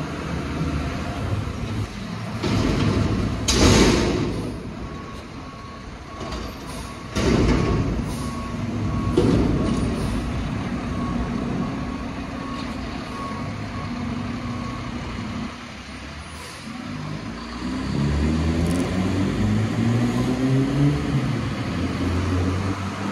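Mack MRU TerraPro front-loader garbage truck: two loud bursts of noise in the first eight seconds, then a faint backup alarm beeping evenly while the truck reverses, its diesel engine running underneath. Near the end the engine revs up with rising pitch as the truck pulls away.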